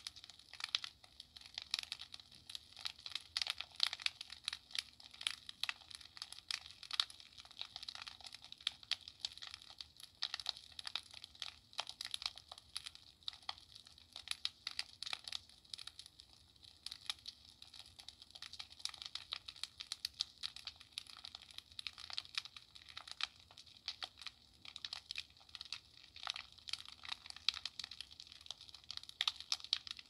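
Fireplace crackling: a steady, dense run of small irregular snaps and pops, with no single loud pop standing out.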